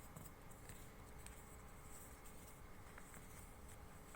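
Near silence with a few faint, brief rustles and crinkles of A4 paper being folded by hand.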